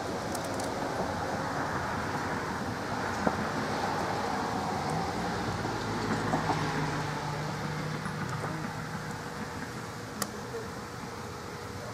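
Overvolted Xbox One console on fire, flames and sparks jetting from its side with a steady rushing noise. A low hum rises in the middle, and there are sharp pops about three seconds in and near the end.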